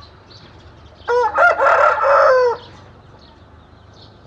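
Rooster crowing once, about a second in: a few short notes and then a long held note, lasting about a second and a half. Faint short chirps run underneath.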